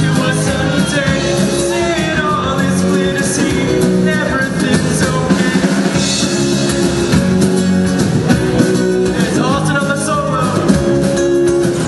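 Live rock band playing: acoustic-electric guitar, electric bass and drum kit, with a lead vocal at times.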